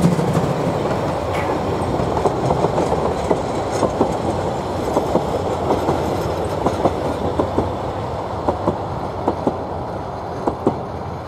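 Narrow-gauge railway coaches rolling past, their wheels clicking over the rail joints in quick pairs, the sound slowly fading as the train moves away.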